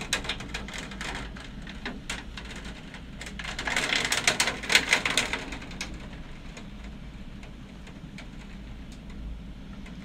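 Heavy storm downpour: a steady hiss of rain with many sharp ticks of drops striking, growing louder and denser for a couple of seconds about four seconds in.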